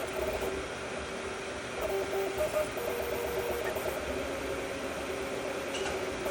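3D printer running mid-print: its stepper motors whine in steady tones that shift as the print head moves around the top layer, over a steady hiss.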